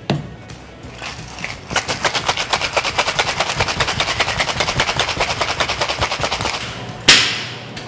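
Ice cubes rattling hard and fast inside a metal cocktail shaker as a cocktail is shaken, a rapid even clatter lasting about five seconds. A single loud sharp knock on the shaker comes near the end.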